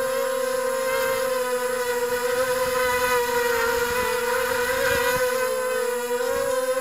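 FPV drone's electric motors and propellers whining steadily in flight, heard close up from the craft's onboard camera. The pitch wavers a little near the end as the throttle changes.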